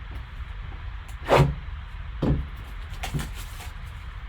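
A sealed trading-card box being handled and opened by hand: three brief scraping rustles, the loudest a little over a second in, then a few light clicks, over a steady low hum.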